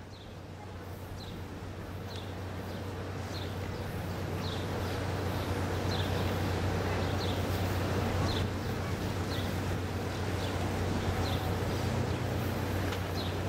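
Steady low hum of an approaching steamship's machinery, slowly growing louder. A bird gives a short high chirp about once a second over it.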